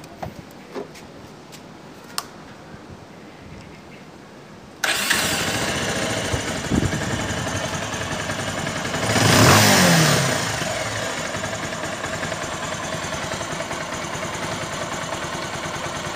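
R180 motorcycle engine starting: it catches abruptly about five seconds in and runs on, with one brief rev about halfway through. The hard-starting fault is cured by resetting the valve clearance and cleaning the carburetor, and the engine now starts on the first try.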